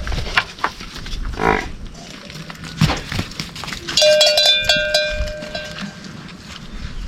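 Bells on grazing livestock clanking and ringing, loudest in a cluster about four seconds in, with a brief low from a cow about a second and a half in.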